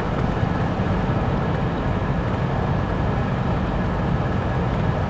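Steady road and engine noise inside a camper's cab while cruising on an expressway: a low rumble with tyre hiss, unchanging throughout.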